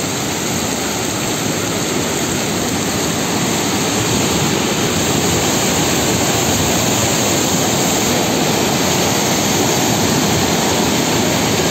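A large waterfall in full flood after heavy rain: a loud, steady rush of falling water, growing slightly louder about four seconds in.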